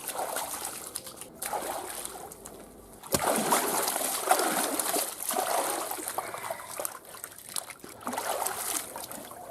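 Water splashing and trickling in a bath, louder from about three seconds in.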